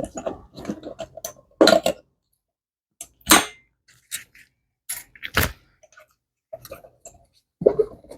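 Irregular clunks and knocks from the loose right wheel of a kids' ATV as it is rocked by hand, the play in the wheel letting it knock. There are about a dozen short hits, with the louder ones a second or two apart.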